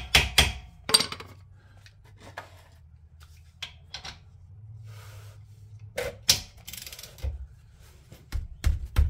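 A hammer strikes a socket about four times in the first second, driving it onto a rounded steel differential plug. Scattered metal clicks and clanks follow as the socket, extension and ratchet are fitted and worked on the plug, with a louder knock around six seconds and a cluster of knocks near the end.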